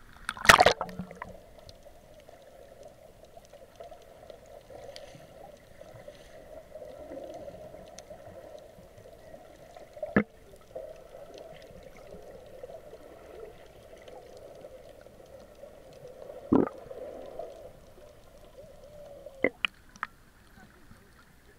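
Sea water: a loud splash about half a second in, then steady gurgling and sloshing of water, broken by short sharp splashes or knocks at about ten, sixteen and nineteen seconds.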